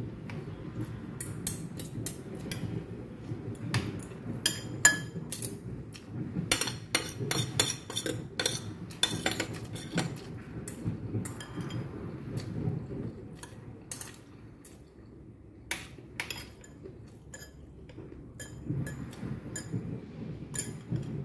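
Metal spoon and fork clinking and scraping against a ceramic bowl and plate while scooping rice, sardines and string beans: many scattered sharp clinks, thickest in the first half, fewer and quieter for a few seconds after the middle.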